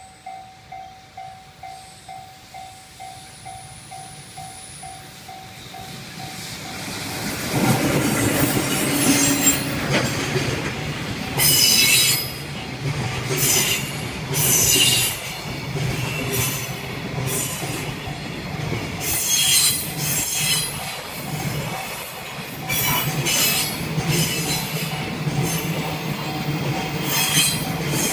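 A level-crossing warning bell dings about twice a second, then about seven seconds in a JR Freight EF66 electric locomotive passes close by and a long train of container wagons follows. The wagons rumble and clatter over the rail joints, with recurring bursts of high metallic noise.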